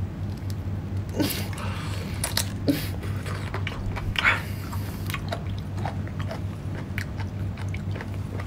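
Close-up eating sounds: a person biting and chewing sauce-soaked seafood, with wet smacks and small clicks scattered throughout.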